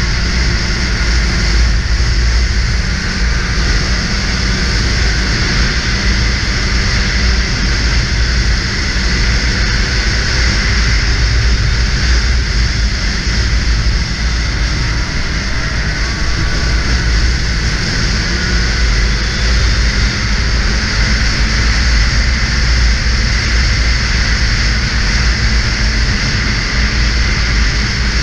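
Snowmobile engine running steadily at speed, its drone mixed with rushing wind noise.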